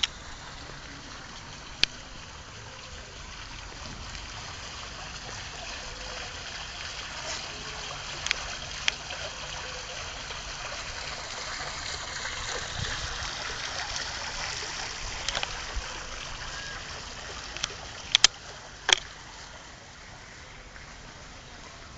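Steady hiss of running water that swells a little midway, with a few sharp clicks scattered through it.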